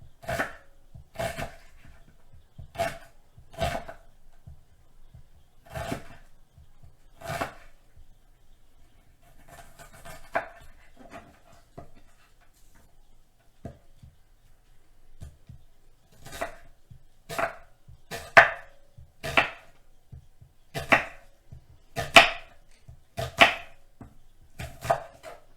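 Kitchen knife thinly slicing an onion on a cutting board: a string of sharp knocks as the blade meets the board, about one a second, with a softer scraping stretch midway and the loudest strokes near the end.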